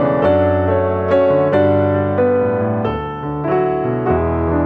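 Background piano music: a melody of single notes over held low notes.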